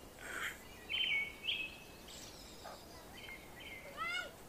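Young chicks peeping in short, high calls, repeated every second or so. A short rising call comes near the end, and there is a brief noisy rustle at the start.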